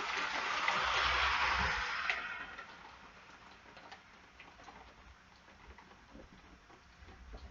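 Storm sounds: a rushing swell of noise with a deep rumble under it, fading away over the first two to three seconds, then faint scattered ticking of raindrops.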